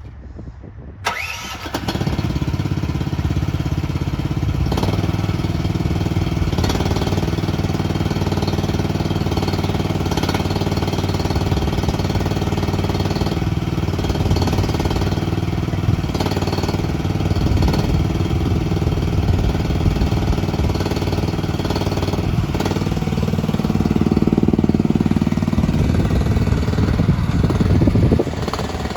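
CFG KT13R mini excavator's engine starting about a second in, then running steadily. Near the end it gets louder with a higher note for a few seconds before dropping back.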